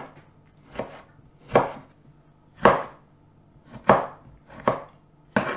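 Kitchen knife slicing tomatoes and knocking on a wooden chopping board, about six cuts roughly a second apart.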